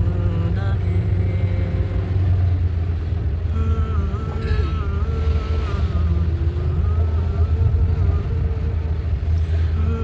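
Steady low rumble of a moving road vehicle. A melody plays faintly over it from about a third of the way in.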